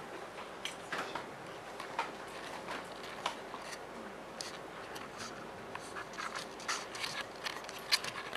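Scattered small clicks and rustles of people moving about and handling things, over a faint steady room hum.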